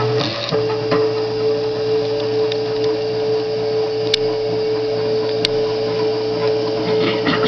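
Stepper motors of a homemade CNC machine whining steadily as they drive the pen head along the outline of lettering; the pitch shifts up about half a second in and the sound breaks off briefly near the end.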